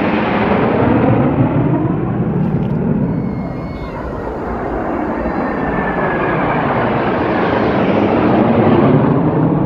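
Jet engine roar from a formation of fighter jets flying overhead. It eases a little around the middle, then swells again to its loudest near the end.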